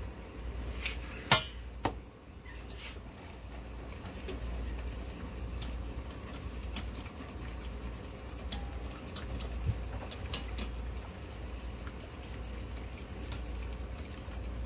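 Metal tongs clacking against a stainless steel skillet as pieces of steak are turned, with two sharp knocks about a second and a half in. Then a wire whisk stirring a sauce in a saucepan gives light scattered clinks against the pan, over a low steady hum.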